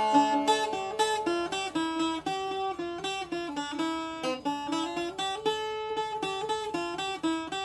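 Greek bouzouki played solo: a quick single-note melody of rapidly picked notes in rebetiko style.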